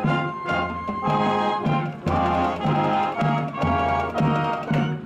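Junior high school marching band playing, brass (trumpets and trombones) over a steady low bass, in short accented chords with a regular beat.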